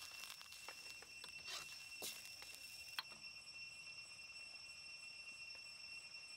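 Metal ladle scraping and clinking against a steel wok as thick curry paste is stirred, a few light knocks with one sharper clink about three seconds in. A steady high-pitched insect drone runs behind it.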